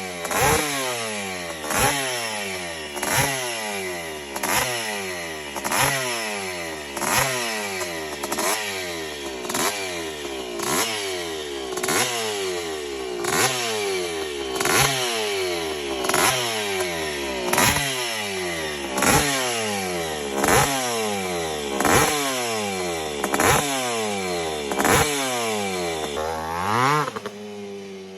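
Bultaco Pursang's two-stroke single-cylinder engine being blipped on the throttle about once every second and a half. Each rev rises sharply and falls back, with a last slower rev near the end before it settles lower.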